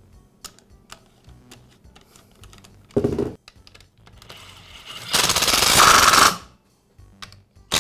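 Cordless power driver running for about a second, driving home one of the bolts that hold the plastic fuel tank on a string trimmer's engine. A short knock comes a couple of seconds before it, with light handling clicks around it.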